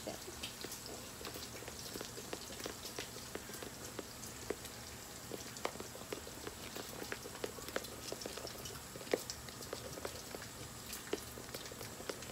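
Bacon frying in hot fat, crackling with irregular small pops and spits over a steady sizzle.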